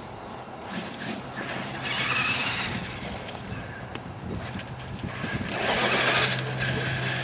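Traxxas E-Maxx electric RC monster truck driving on asphalt: two surges of motor whine and tyre hiss as it accelerates, about two seconds in and again around six seconds, over a steady low hum.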